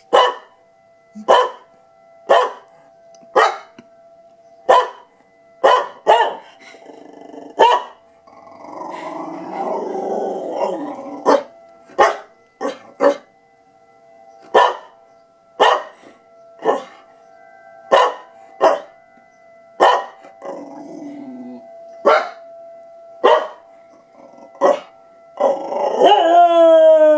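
Cocker spaniel barking in sharp barks about once a second, with a rough, noisy stretch of about two seconds near ten seconds in, then breaking into a long howl falling in pitch near the end. Faint steady tones of an emergency siren test run underneath, the sound that sets the dog off.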